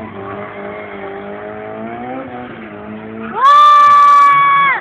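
Drift car's engine revving up and down while the car slides through the corner. About three and a half seconds in, a loud, steady, high tyre squeal takes over for over a second and then cuts off suddenly.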